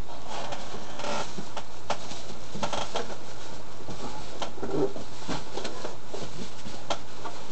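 Irregular rustling and light clicks and knocks of unboxing packaging being handled: cables in plastic bags and items in a cardboard box.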